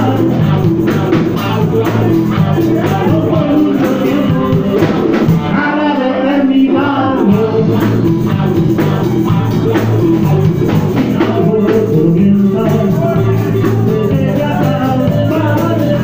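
Live rock band playing loudly: electric guitar and drum kit, with singing.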